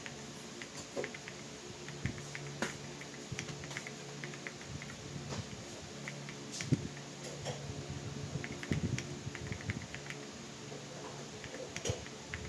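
Typing on an Akko 5075S mechanical keyboard with pre-lubed Akko Creamy Blue Pro switches and OSA-profile PBT keycaps. The keystrokes come as uneven clicks and clacks, sometimes in quick runs and sometimes in single presses.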